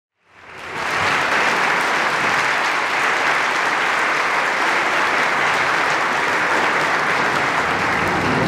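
Concert-hall audience applauding steadily. The applause fades in from silence over the first second.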